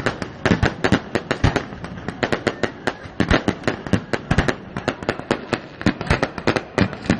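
A fireworks display going off in a rapid, irregular barrage of sharp bangs and cracks, several a second.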